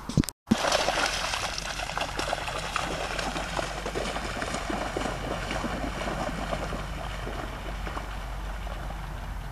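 Two Rhodesian ridgebacks running and splashing through shallow bog water, a continuous rough sloshing and spattering that slowly fades as they move away. A brief click and gap about half a second in.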